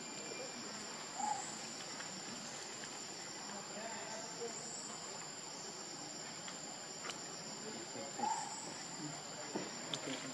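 Steady high-pitched insect chorus, cricket-like, with two brief calls about a second in and about eight seconds in.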